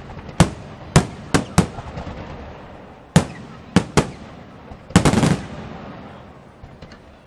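Aerial firework shells bursting with sharp, echoing bangs, some about a second apart, with a quick cluster of bangs about five seconds in and another bang near the end.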